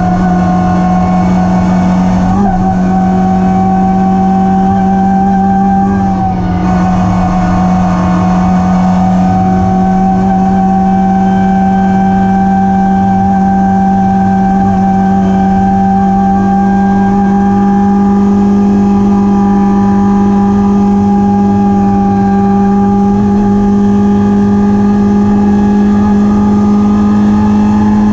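BMW E36 Compact race car's 1.9-litre engine heard from inside the stripped, caged cabin, running hard at high, nearly steady revs that creep slowly upward, with a brief dip about six seconds in.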